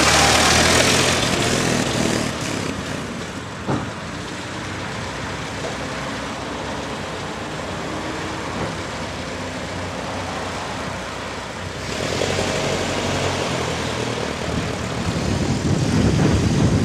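1922 Ford Model T's four-cylinder engine running as the car drives off, loud at first and then fading, with road traffic noise swelling again near the end.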